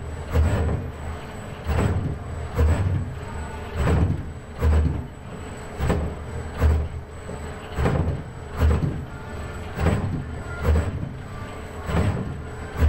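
ABB industrial robot arm's servo motors and gearboxes running in loud surges, about one a second, as the arm makes quick repeated moves with its paintbrush.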